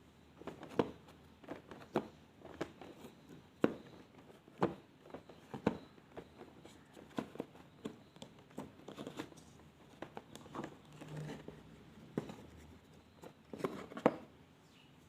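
Elmer's glue slime being squished and stretched by hand, giving off irregular sticky clicks and pops, a few louder than the rest.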